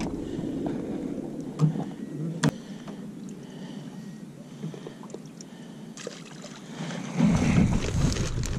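Boat ambience: a steady hiss of wind and water with a few light knocks and clicks, one sharper knock about two and a half seconds in. A low wind rumble on the microphone comes in suddenly near the end.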